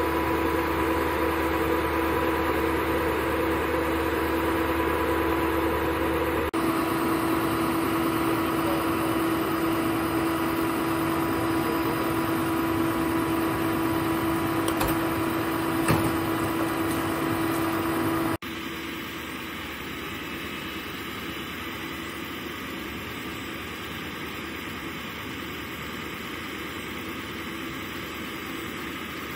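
Ford utility bucket truck's engine running steadily with a held hum, kept running to power the boom. The sound shifts abruptly twice and is quieter after the second shift, with one short knock in the middle.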